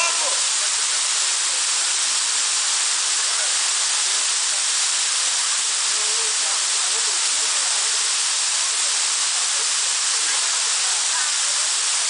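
Waterfall pouring down close by, a steady hiss of falling water and spray.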